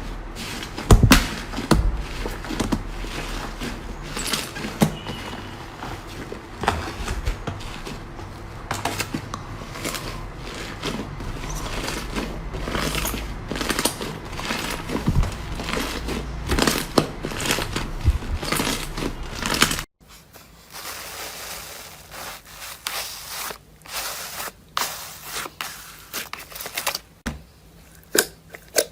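Slime being squeezed, pressed and stretched by hand, giving dense irregular crackling and popping clicks. About two-thirds of the way through, the sound cuts abruptly to a quieter stretch of sparser clicks.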